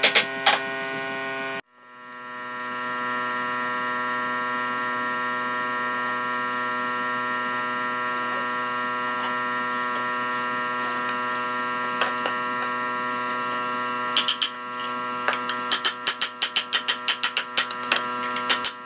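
A steady droning hum made of several held tones. From about fifteen seconds in, a hammer strikes a square wooden bed leg in quick repeated blows, about three a second.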